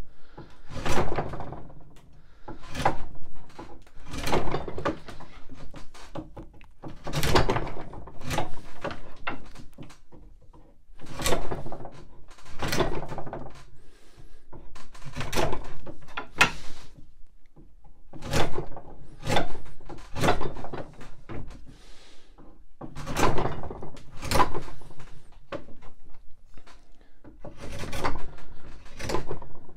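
Draw knife shaving a wooden spindle blank held in a shave horse, rounding its end. The blade is pulled through the wood in quick runs of several scraping cuts, the runs coming every few seconds.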